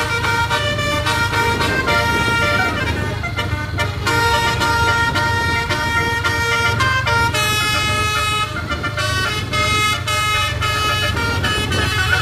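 Tour bus's basuri "telolet" musical horn, several trumpets playing a quick run of changing notes like a tune. Under it is the steady low rumble of the bus's engine.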